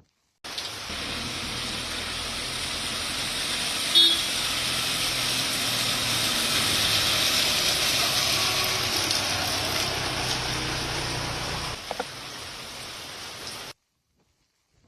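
Steady rush of cyclone wind and heavy rain, with a low rumble underneath and a brief car horn toot about four seconds in; it cuts off suddenly near the end.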